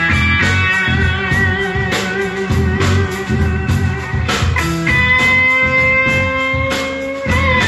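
Live rock band playing: electric guitar holding long notes, some with vibrato, over a steady drum beat.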